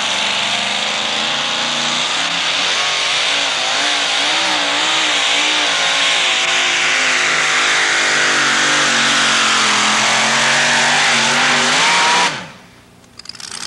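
Supercharged two-wheel-drive pulling truck engine running flat out under load, its pitch wavering up and down through the pull. About twelve seconds in it is shut off and winds down quickly at the end of the pull.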